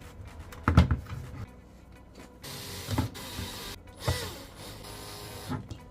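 Knocks and clicks of a hard drive and its SATA cables being handled and seated in a metal NVR chassis, with about a second of steady scraping in the middle.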